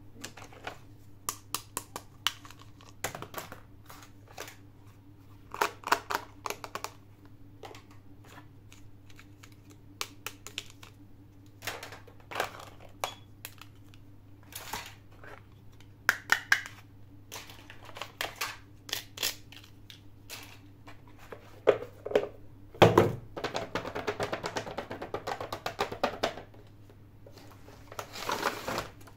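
Small plastic toy pieces clicking and tapping as they are handled and unpacked, with a few seconds of plastic packaging crinkling about twenty-three seconds in, over a low steady hum.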